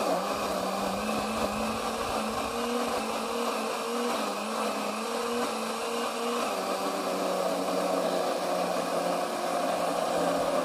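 Electric mixer grinder running steadily, blending a liquid egg mixture in its jar. Its hum drops slightly in pitch a little past halfway.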